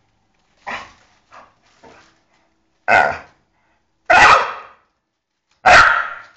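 Staffordshire bull terrier making strange, short vocal noises: three faint ones, then three loud ones of about half a second each. He makes them from frustration at being kept from the female dog he wants to reach.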